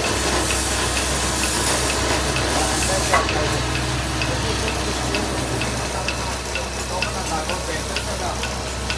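Electric wood lathe humming as a turned wooden cot leg spins, with a steady rubbing hiss of hands and colour pressed against the spinning wood. Faint regular ticks come about twice a second in the second half.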